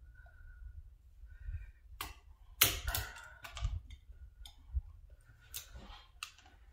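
Farrier's rasp working a horse's front hoof: a handful of sharp, irregular scraping strokes, the loudest about two and a half seconds in.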